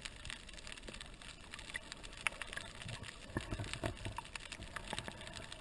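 Underwater sound picked up by a camera below the surface: a steady crackle of many scattered sharp clicks, with a few low thumps about three to four seconds in.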